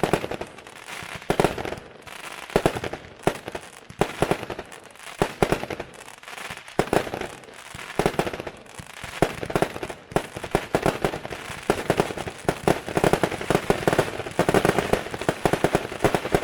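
Three 200-gram consumer firework cakes from World Class's Mechanic Pack firing together. Sharp bangs come in repeated clusters with crackle between them, and they grow denser over the last few seconds.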